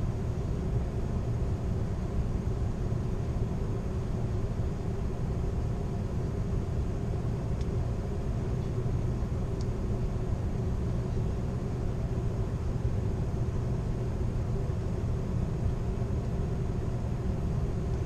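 Steady rumble of a moving Amtrak California Zephyr passenger car, wheels rolling on the rails, heard from inside at the rear of the last car, with a couple of faint ticks near the middle.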